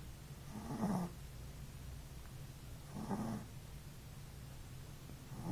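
Chihuahua puppy snoring in its sleep: a short snore about a second in, another about three seconds in, and a third starting near the end, over a low steady hum.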